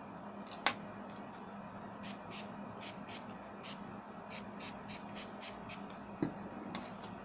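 A run of light, irregular clicks and ticks, with a sharper click about a second in and a soft thump near the end, over a steady low hum.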